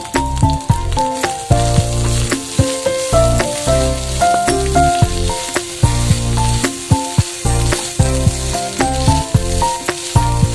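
Minced meat frying in a non-stick pan, sizzling while a spatula stirs and scrapes it in short clicks. Background music with a steady beat plays over it.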